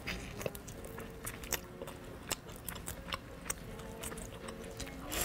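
Crisp batter of a deep-fried chicken drumstick being bitten and chewed close to the microphone: a string of irregular sharp crunches.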